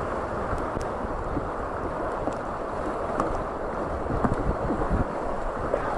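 Rushing whitewater of a fast mountain river heard from low on an inflatable raft, a steady roar of water close by with spray and slaps against the raft's rubber tube. A few sharper knocks and splashes come between about four and five seconds in as the raft runs through the waves.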